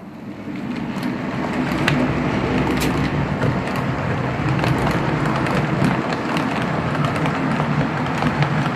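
HO-scale model train running on PIKO track: a steady low motor hum with scattered clicks from the wheels on the rails, getting louder about half a second in.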